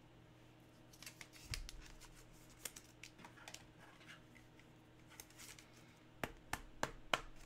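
Faint scattered clicks, taps and light rustles of trading cards being handled, with a dull knock about one and a half seconds in and a quick run of sharper clicks near the end.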